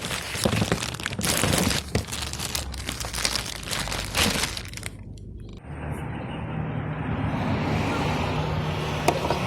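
Dense crackling and rustling noise for about five seconds, then, after a sudden change, a Fiat Punto's engine idling with a steady low hum.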